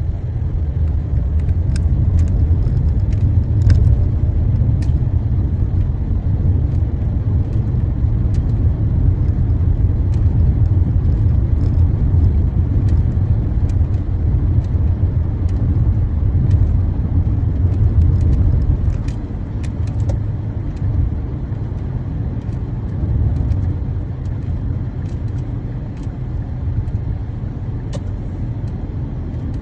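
Driving noise heard inside a moving car's cabin: a steady low rumble of engine and tyres on the road, easing a little about two-thirds of the way through.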